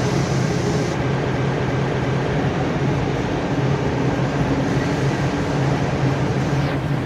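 Caramel popcorn production line machinery running steadily: a constant low hum under a wash of machine noise.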